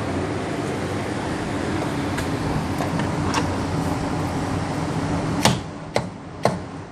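A steady whooshing background noise with a faint low hum. About five and a half seconds in, a sharp knock is followed by two lighter clicks as the new CV axle shaft is handled under a John Deere Gator.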